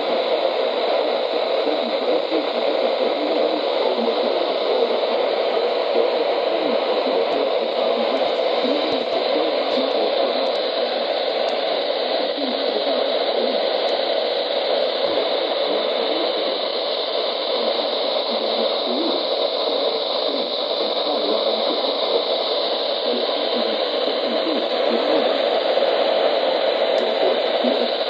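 Steady loud static hiss from a weather radio receiver, cut off sharply above the treble. The National Weather Service broadcast is lost in the noise, the sign of a weak or dropped signal.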